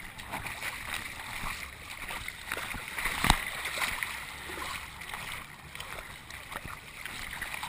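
Muddy water splashing and sloshing around a chest-mounted camera as its wearer moves through a water-filled obstacle pit, with many small knocks and one sharp knock about three seconds in.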